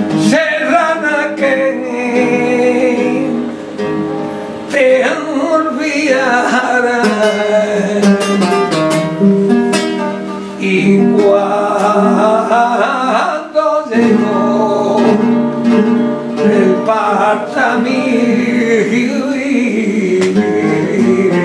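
Flamenco cante: a man singing a granaína in long, wavering, ornamented phrases over a flamenco guitar accompaniment, with a brief break between phrases about two-thirds of the way through.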